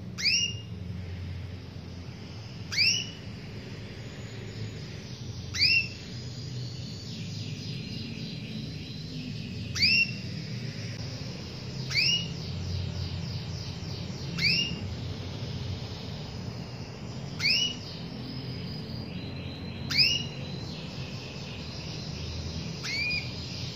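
Domestic canary giving a loud, quick upslurred call note about every two to three seconds, nine in all, with fainter fast trills in between.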